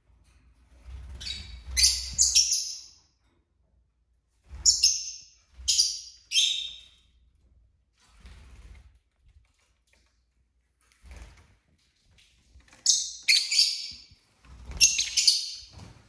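Lovebird giving short, sharp, high-pitched chirps in three clusters of two to four calls each, separated by quiet pauses of a few seconds.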